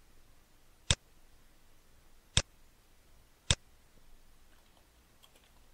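Three single computer mouse clicks, each short and sharp, spread over a few seconds, then a few faint soft ticks near the end.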